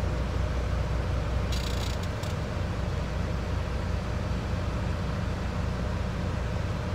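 Heavy truck's diesel engine idling: a steady low rumble with a faint hum above it. A brief hiss cuts in about a second and a half in.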